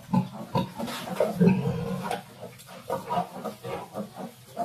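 Piglets grunting over and over in short calls, the loudest about a second and a half in.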